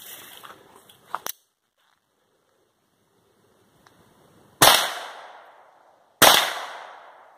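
Two shots about a second and a half apart from a Browning Buck Mark .22 LR semi-auto pistol firing hyper-velocity rounds. Each is a sharp crack that rings out and fades over about a second.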